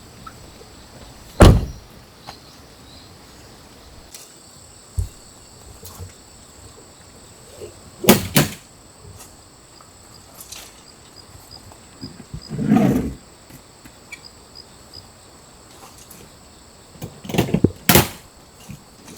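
A few separate sharp knocks several seconds apart, with a longer, duller thump about two-thirds of the way through, over a quiet background with a faint steady high whine.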